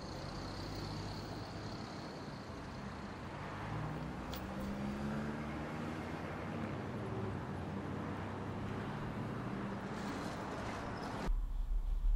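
Steady traffic and engine hum from a gas station forecourt, heard from inside a parked car. Near the end it switches abruptly to a much louder, very low hum.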